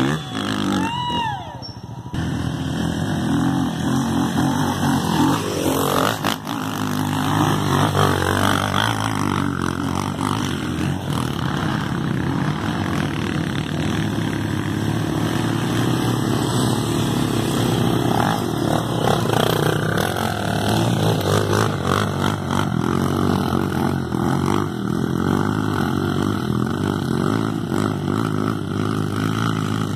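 Dirt bike engines running steadily, getting a little louder a few seconds in, with the engine note shifting slightly as the riders go.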